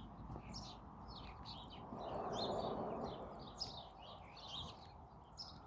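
Small songbirds chirping and twittering in quick, short high notes, with a brief swell of rushing noise about two seconds in.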